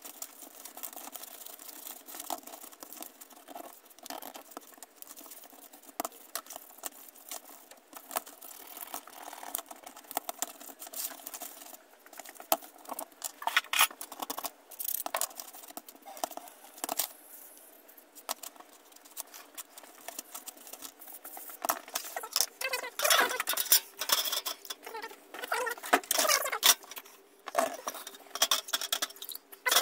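Toothbrush scrubbing the greasy, rusty gears of an old hand drill, a rapid scratchy rasping, with clicks and clinks of the small metal parts being handled, louder and busier in the second half.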